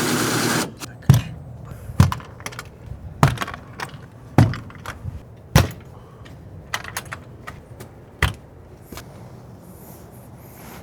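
A short burst of rushing noise at the start, then irregular sharp clicks and knocks, about one a second with fainter ticks in between, tapering off near the end.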